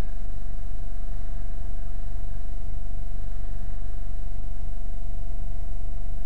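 Motorcycle riding at a steady pace, heard from a camera mounted on the bike: a constant low rumble of engine and wind noise, with a thin steady whine over it.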